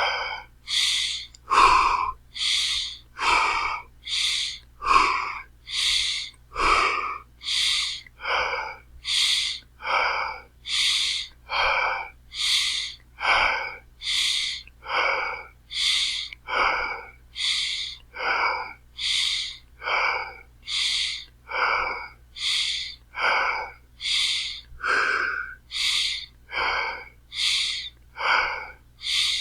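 A person breathing hard and fast, with loud, regular, gasping in-and-out breaths at an even pace. Each full breath, in and out, takes about a second and a half.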